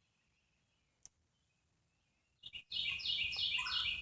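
A songbird sings a quick run of repeated, downward-sliding chirped notes, starting about three-quarters of the way in after a couple of light clicks. The same phrase is repeated over and over.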